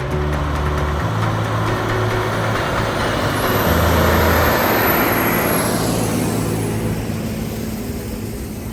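Large harvest machinery passing close by, its engine and mechanical noise swelling to a peak about four seconds in and then fading away.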